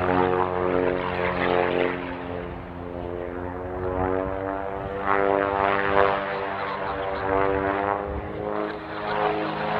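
Pitts Special aerobatic biplane's piston engine and propeller running at display power, the pitch and loudness sliding down and up as it manoeuvres.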